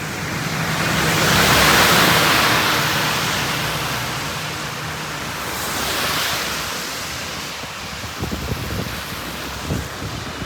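Heavy monsoon rain falling steadily on a wet road. About one to three seconds in, a vehicle passes with its engine and the hiss of its tyres through the spray rising and fading, and a smaller swell of tyre hiss follows around six seconds in.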